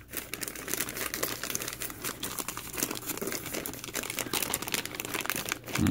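Plastic MRE flameless ration heater bag and the entree pouch crinkling and rustling as the pouch is worked into the bag, a dense run of irregular crackles.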